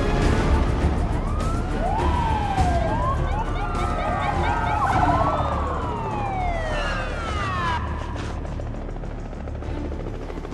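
Several police car sirens wailing at once, their pitches sweeping up and down and overlapping, over a steady low rumble; they grow fainter in the second half.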